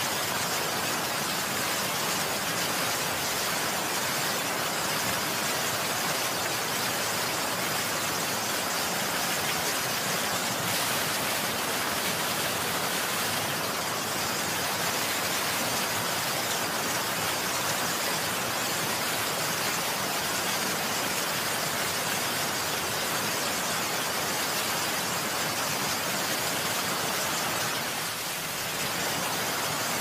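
Steady heavy rain, an even unbroken hiss that dips slightly near the end.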